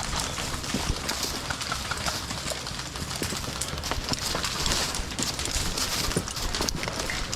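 Footsteps of a player moving over outdoor ground, with irregular crunching and small knocks of gear amid a continuous rustle.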